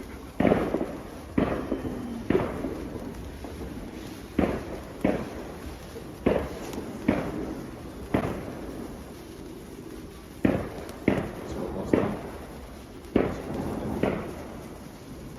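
Fireworks going off in a string of about a dozen sharp bangs at uneven intervals, each followed by a short fading tail.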